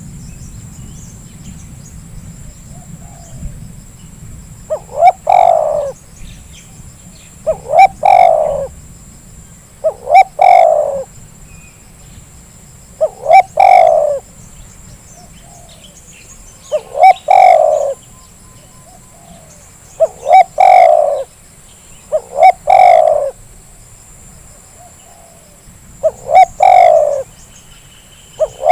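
Spotted dove cooing: the same call repeated about every two and a half to three seconds, each a couple of quick short notes followed by a longer, falling coo. This is the lure call used to draw wild spotted doves.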